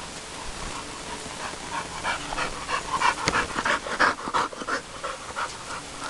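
Two American bulldogs play-fighting at close quarters, making quick, short, breathy sounds several times a second for about four seconds, starting a second and a half in. A single sharp click about three seconds in.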